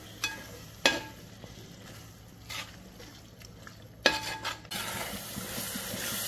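Perforated metal spatula stirring thick tomato masala in a metal pot, scraping and clinking against the pot a few times while the masala sizzles. The sizzle turns into a steadier hiss about two-thirds of the way in.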